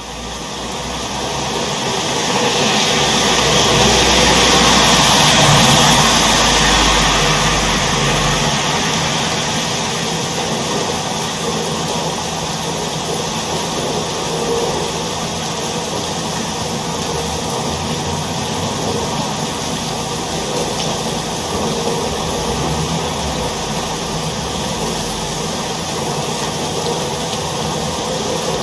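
Steady hiss of heavy rain. It builds over the first few seconds, with some low rumble, then holds even.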